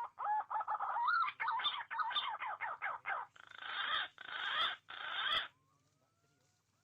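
Green pigeon (punai) calling: rapid wavering whistled notes run into three harsh, rasping phrases, which cut off suddenly about five seconds in.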